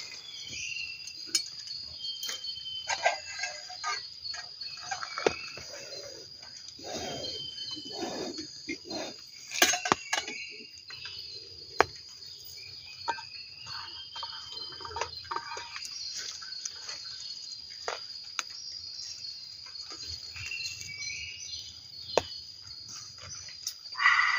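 Forest insects, such as crickets, trilling steadily at a high pitch, with short chirps mixed in. Scattered sharp clicks, knocks and rustles of handling come through over them.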